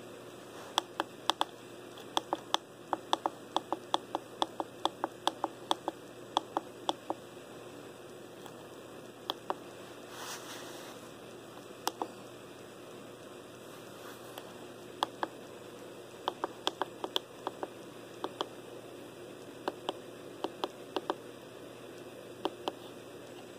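Plastic menu buttons on a Walkera Devo 10 radio-control transmitter clicking as they are pressed to scroll through settings: quick runs of about three clicks a second for the first several seconds, then single clicks and short groups with pauses between. A brief soft rustle about ten seconds in.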